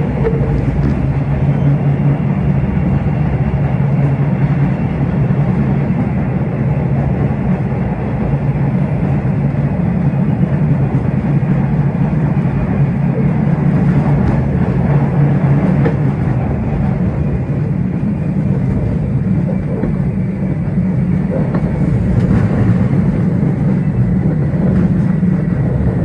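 MBTA Red Line subway train running through a tunnel, heard from inside the car: a loud, steady rumble of wheels on rail.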